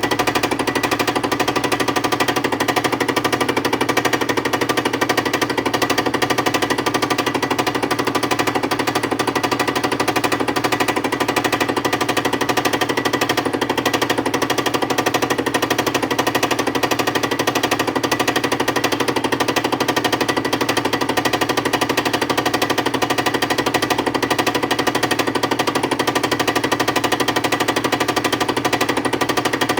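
Milling machine facing a machine part: the cutter's teeth chattering rapidly and steadily through the cut over the machine's steady running hum.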